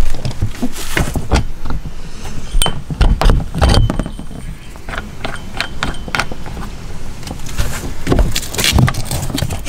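Metal dinghy oars being fitted onto the plastic oarlocks and clip holders of an inflatable dinghy: irregular clicks and clinks with a few dull knocks.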